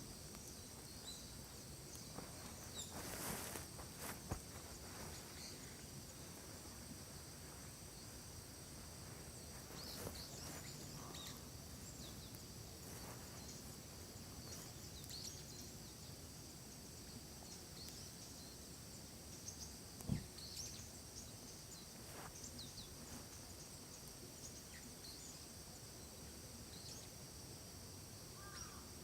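Faint forest ambience: a steady high-pitched insect drone with scattered short bird chirps, a brief rustle about three seconds in and a single knock about twenty seconds in.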